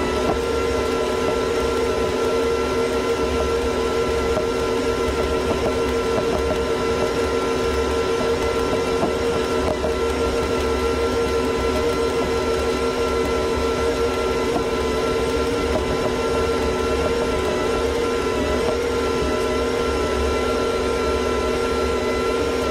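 John Deere 8320R tractor running steadily under load while pulling a 637 disk harrow through dry soil: an even engine drone with a steady whine over it.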